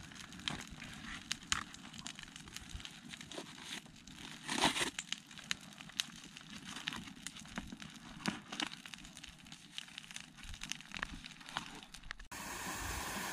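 Small wood campfire crackling with scattered sharp snaps, while sticks of kindling are knocked and shifted in the fire pit; a louder crunch comes about four and a half seconds in. Near the end the sound cuts to a steady hiss.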